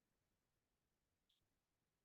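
Near silence: room tone, with one very faint short click a little over a second in.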